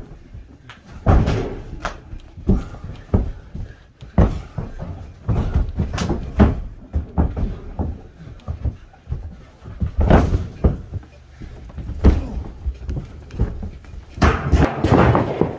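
Amateur wrestlers brawling on a carpeted floor: irregular slams and thuds of bodies and feet hitting the floor and each other, with scuffling between them and a flurry of hits near the end.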